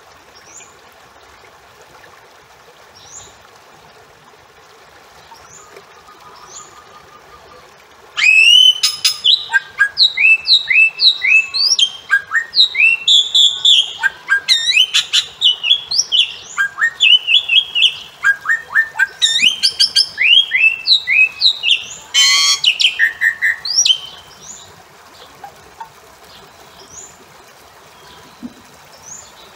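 Bali myna calling. After a few faint chirps, a loud run of quick rising whistled notes, several a second, starts about eight seconds in and lasts about sixteen seconds, with a short harsh note near its end.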